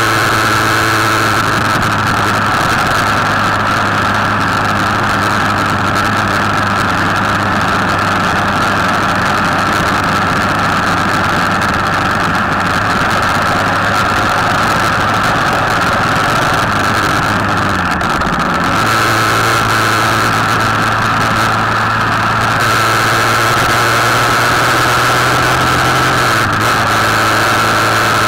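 Motorcycle engine running steadily while riding along at road speed, with wind rushing over the machine. Its note dips briefly about two-thirds of the way through and comes back a little higher.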